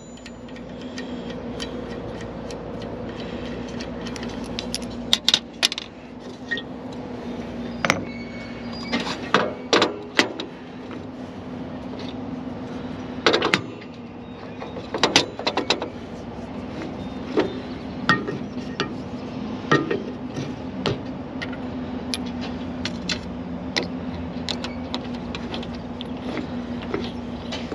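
Irregular metal clinks and knocks of steel rollers, nuts and a wrench being handled while the bending rollers on a Diamond DBD-25X rebar bender are changed, over a steady hum of a small engine.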